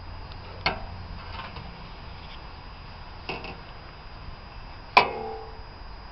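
Three sharp knocks on something hard, a few seconds apart, over a steady low hum. The third knock is the loudest and rings on briefly.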